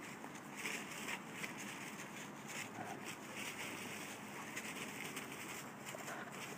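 Two dogs wrestling and scuffling on leaf-strewn grass: irregular rustling and crunching of dry leaves and grass under their paws and bodies, over a steady hiss.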